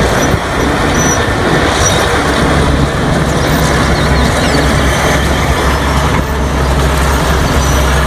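Heavy bulldozer engine running steadily with a low rumble.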